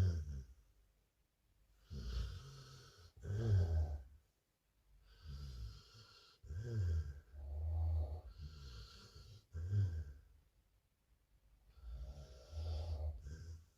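Snoring: slow breaths in and out with a low, rumbling snore, about four breaths a few seconds apart with quiet pauses between.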